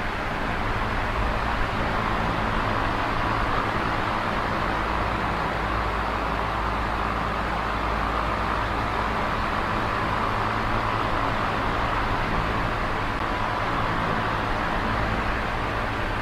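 Small oscillating electric fan running with a steady whoosh of air and a low motor hum, the airflow swelling and easing slowly as the head swings.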